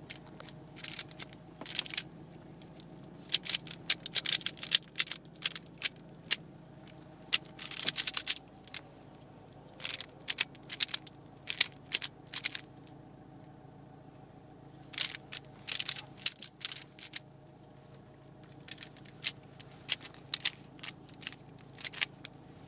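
Rubik's cube being turned rapidly during a timed solve: quick irregular runs of plastic clicking and clacking, broken by short pauses.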